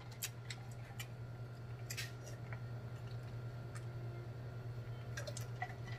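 A man drinking water from a large glass jar: faint swallows and small clicks of the glass, over a steady low hum.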